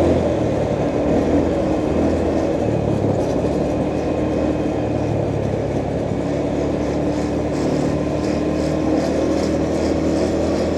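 A motor vehicle's engine running steadily under road and traffic noise, with a constant low hum.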